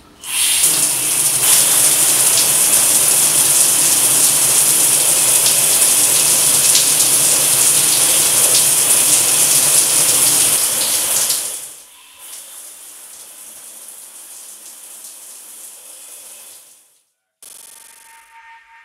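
Shower turned on: water spraying loudly for about eleven seconds, then dropping abruptly to a much quieter, muffled hiss. After a brief silence near the end, a steady high tone sounds.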